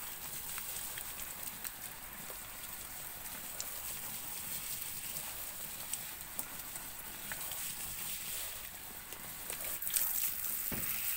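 Garden hose spray watering potted lemongrass: a steady hiss of water pattering on the leaves and soil, a little louder near the end.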